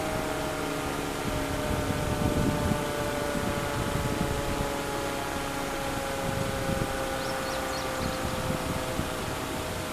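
Sentry 20V2T two-tone outdoor warning siren sounding a steady chord, its pitch sliding down slowly, with low rumbling noise underneath.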